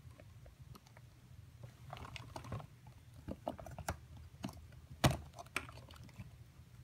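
Light clicks and taps of small plastic toy parts being handled, with one sharper click about five seconds in.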